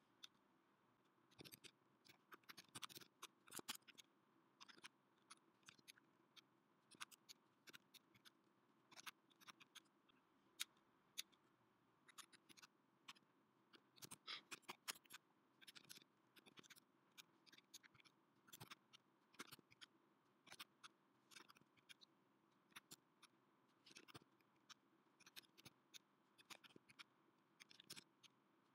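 Faint computer keyboard typing: irregular key clicks in quick runs broken by short pauses.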